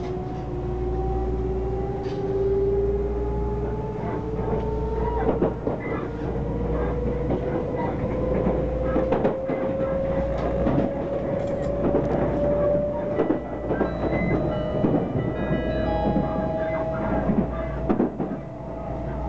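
Odakyu limited express train heard from inside the passenger car: a motor whine rising slowly and steadily in pitch as the train gathers speed, over a steady running rumble and scattered clicks of the wheels on the track.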